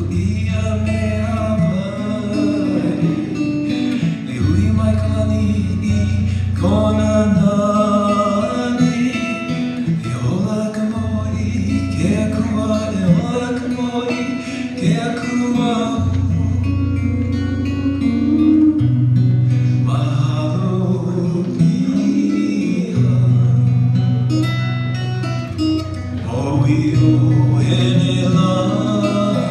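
A man singing a Hawaiian song in Hawaiian, accompanying himself on acoustic guitar.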